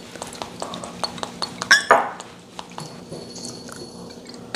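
Small clicks and clinks of measuring spoons and spice containers against a bowl as seasonings are spooned in, with one short louder sound about two seconds in, over a faint steady hum.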